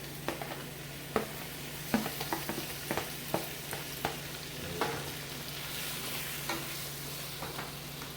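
Chopped vegetables sizzling in butter in a pan while spatulas stir them, clicking and scraping against the pan at an uneven pace, over a steady low hum.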